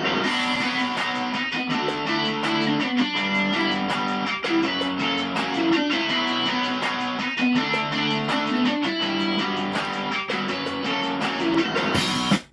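Outro music led by guitar, with strummed chords over a steady rhythm; it cuts off abruptly at the very end.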